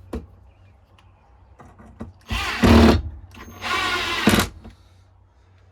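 Power drill running in two short bursts, each under a second, about half a second apart, with its pitch shifting as it runs, with a few light clicks around them.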